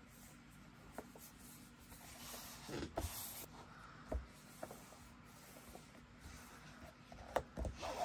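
Faint handling of a paper frame being set and pressed into place: scattered light taps and rubbing, with a short rustle about three seconds in.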